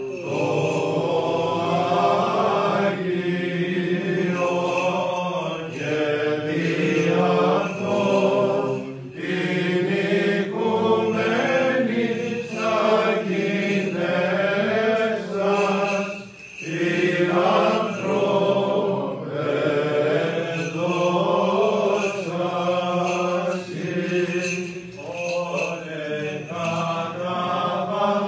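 Byzantine chant in Greek: male voices singing a long, winding melodic line over a steady held low drone, with one short breath about halfway through.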